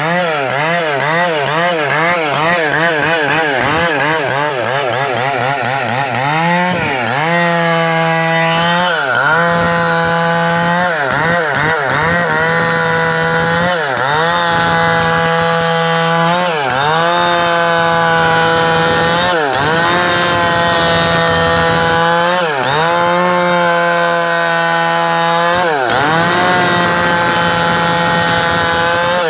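Two-stroke chainsaw running at high revs while cutting wood. For the first six seconds its pitch wavers quickly up and down; after that it holds steady, with a sharp dip and recovery every two to three seconds.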